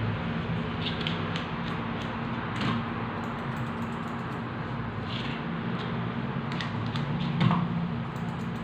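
Grooming scissors snipping fur on a dog's leg: a few scattered crisp snips, the loudest near the end, over a steady background hum.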